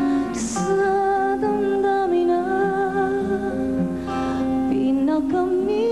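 A woman singing a slow ballad live, holding long notes with vibrato that move from pitch to pitch over soft, sustained accompaniment.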